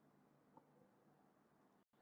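Near silence: a pause between spoken words, with only faint room tone.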